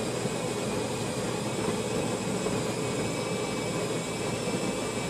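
Miele CVA 6800 built-in coffee machine running with a steady mechanical whir as it starts making an espresso.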